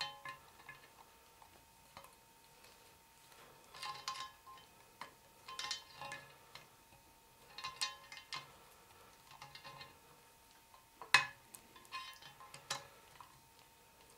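Channel-lock pliers clicking and clinking against a deep-groove radial ball bearing as it is squeezed, a little at a time, into its tight slot in a lathe gearbox. Clusters of light metallic clicks with a short ring come every second or two, and the sharpest click falls about eleven seconds in.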